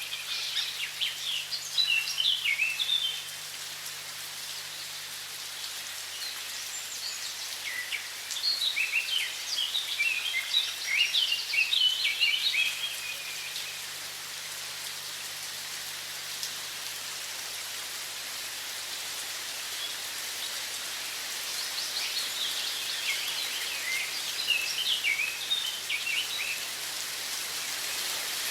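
Steady rush of running water with songbirds singing over it in three bouts of quick, high chirps: at the start, in the middle and near the end.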